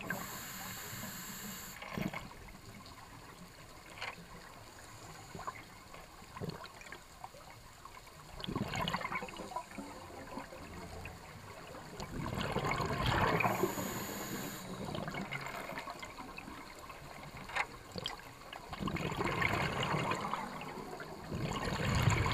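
Scuba breathing through a demand regulator: each breath draws a short hiss of air, and the exhale is a bubbling rush of escaping bubbles. Slow breath cycles come in surges several seconds apart, with a few faint clicks between them.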